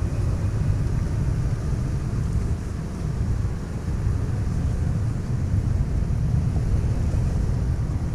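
Wind buffeting the microphone in an uneven low rumble, over a Toyota 4Runner's 4.0-litre V6 running at low revs as the SUV crawls over a dirt mound.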